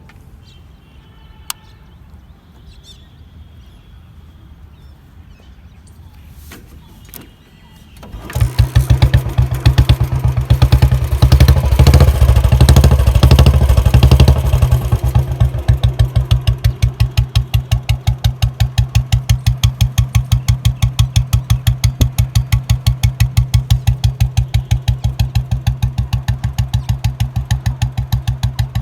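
Royal Enfield Bullet Standard 350's single-cylinder engine, fitted with a short big-mouth mini Punjab aftermarket silencer, starting about eight seconds in after a few faint clicks. It is revved several times, then settles into a steady idle with an even, pulsing exhaust beat.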